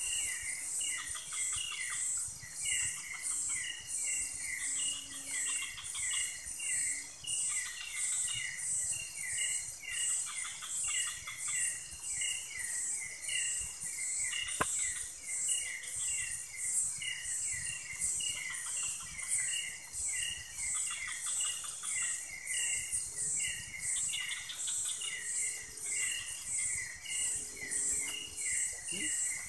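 Night chorus of insects: a steady, high pulsing buzz with rapid repeated chirps beneath it. A single sharp click sounds about halfway through.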